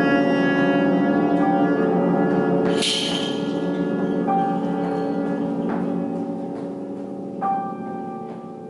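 Live improvised jazz: vibraphone notes struck one at a time and left ringing over held bass clarinet tones, with one bright struck accent about three seconds in. The music thins out and gets quieter toward the end.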